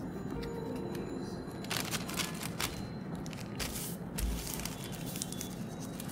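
Thin white tissue paper rustling and crinkling in short irregular bursts as it is folded over a stack of sticker sheets and pressed flat by hand, with a low thump on the desk about four seconds in.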